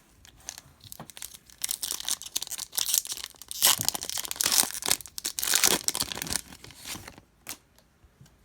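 A hockey card foil pack being torn open and its wrapper crinkled, in a run of rips and crackles that dies away at about 7 seconds, followed by a few light clicks.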